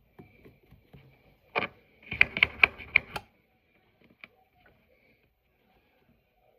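Small objects handled on a tabletop: a short scrape-like burst, then a quick run of about five sharp clicking taps within about a second, and one faint click later. Typical of a makeup tube or cap being tapped or handled while dotting lip stain onto slime.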